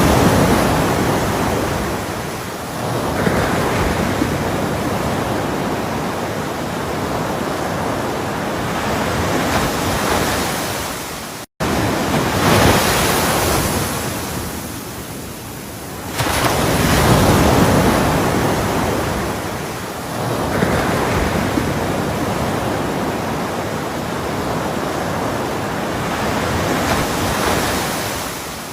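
Ocean waves breaking and washing on a shore, the surf swelling and easing every few seconds. The sound cuts out for an instant about midway.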